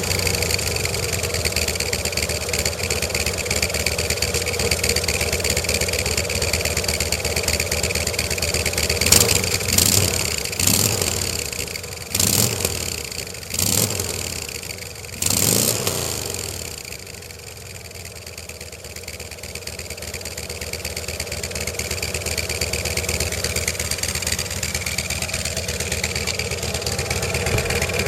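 Harley-Davidson Street Glide V-twin idling through Freedom Performance mufflers fitted with a one-off silencer baffle under test. About a third of the way in it is given a run of six or so quick throttle blips, each falling back, then the idle dips and slowly picks up again.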